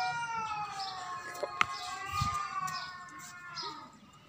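A cat's long, wavering yowl during a territorial standoff between two cats, a threat call that slowly rises and falls in pitch before trailing off near the end. A short sharp click sounds about a second and a half in.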